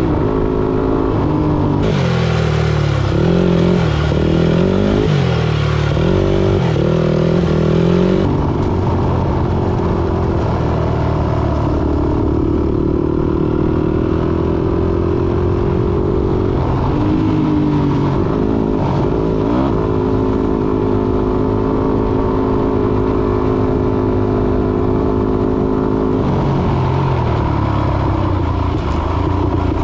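Engine running, its revs rising and falling repeatedly for the first several seconds, then holding at a steady speed for long stretches through the middle and later part.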